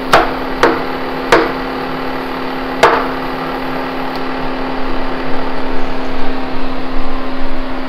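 Four sharp knocks of a cooking utensil against a nonstick pan holding Maggi noodles in water, over the steady hum of an induction cooktop. After a few seconds comes a louder, uneven sound of the noodles being stirred in the water with a wooden spatula.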